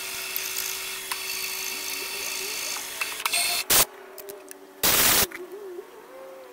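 Milling machine's end mill cutting aluminium: a steady high-pitched whine and hiss, under a constant hum, that stops about three and a half seconds in. A brief loud burst follows, then a louder half-second blast about five seconds in.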